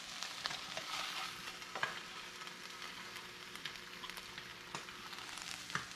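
Mahi-mahi fillets sizzling in a hot frying pan, with a few light clicks as a spatula lifts them out.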